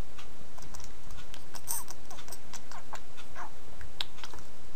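Scattered faint computer clicks and light taps over a steady microphone hiss, with one sharper click about four seconds in.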